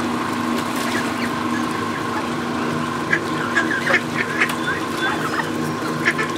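Young Canada geese and mallard ducks calling, a flurry of short, high calls starting about three seconds in. A steady low hum runs underneath.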